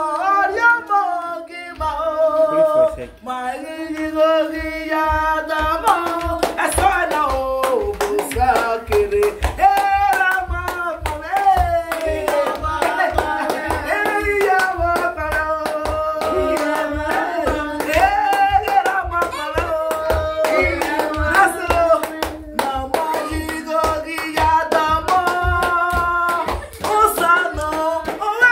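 A woman singing a praise song, with hands clapping along in a steady beat that comes in about two seconds in.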